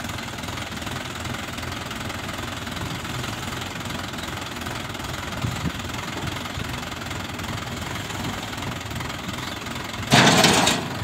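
Mahindra tractor's diesel engine running steadily. About ten seconds in, a brief, loud rush of noise breaks in over it.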